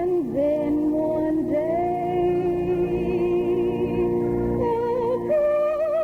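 Congregation singing a hymn to organ accompaniment. Voices hold long notes with vibrato over steady sustained organ chords.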